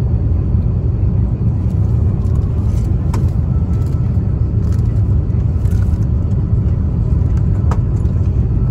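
Steady low rumble of engine and airflow noise inside the cabin of an Airbus A350-900 airliner during its descent, with a couple of faint clicks.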